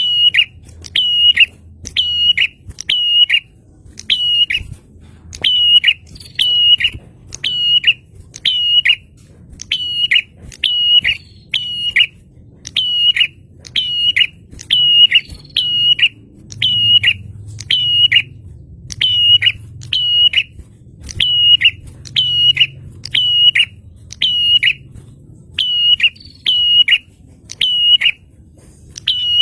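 Prinia (prenjak) calling loudly: a sharp, high chip repeated over and over, a little more than once a second. Each note drops in pitch at its end.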